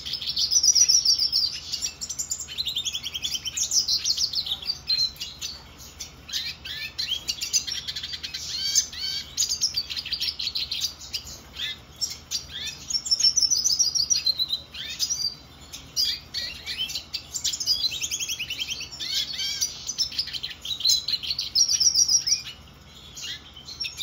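Black-headed siskin (Spinus notatus) singing a long, continuous twittering song of rapid trills and repeated rising and falling sweeping phrases, broken only by brief pauses.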